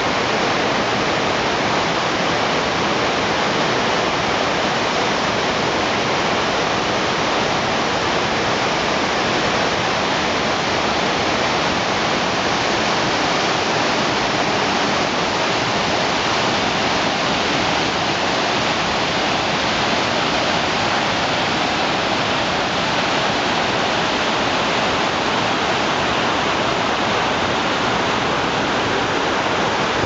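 Rushing water of the Cola de Caballo mountain waterfall and the rocky stream below it, a steady, loud roar that doesn't change. The flow is high with spring snowmelt.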